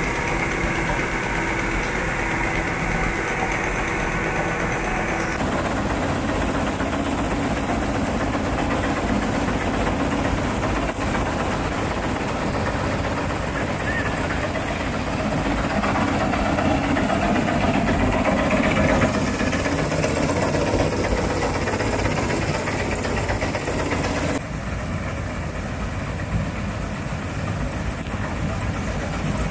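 Bizon Super Z058 combine harvester running while harvesting rapeseed: a steady drone of the engine and threshing machinery. The sound changes abruptly a few times as the shots change.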